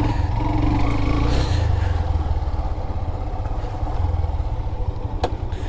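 Motorcycle engine running steadily while riding on a rough track, with a single sharp click about five seconds in.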